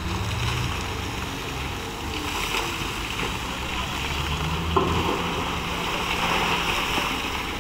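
Komatsu PC2000 hydraulic excavator's diesel engine running steadily as it dumps a bucketload of coal into a Cat 777E dump truck. A rushing clatter of falling coal swells through the middle, with one sharp knock a little before five seconds in.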